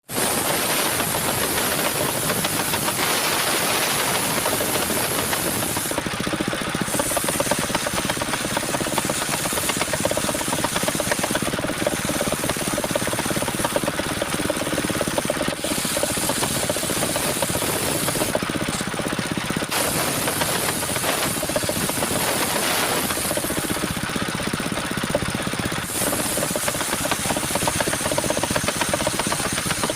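Homemade engine-driven mobile sawmill running, a loud, steady mechanical din with a rattling drive and a high hiss that briefly drops away several times.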